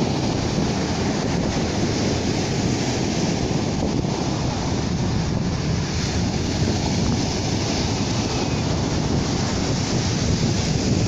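Sea of Azov waves washing onto the shore, with wind buffeting the microphone in a steady low rumble.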